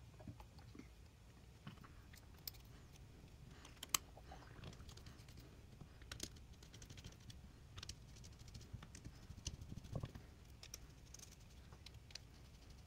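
Faint, scattered clicks and taps of small metal parts being handled: a motorcycle rear brake master cylinder being reassembled, its reservoir cap and diaphragm pressed on and the small cap screws turned in with a screwdriver. One sharper click about four seconds in.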